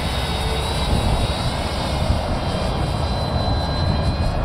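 Motor and propeller of a 3D-printed RC model plane flying overhead, heard as a thin, steady high whine that climbs a little, under a heavy low rumble of wind on the microphone.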